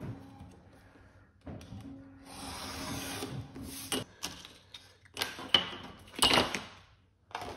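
Utility knife drawing one long cut through printed paper along a steel ruler on a cutting mat, a rough scraping hiss lasting about two seconds. Then several sharp clacks and paper rustles as the metal ruler is shifted and lifted off the sheet, the loudest two near the end.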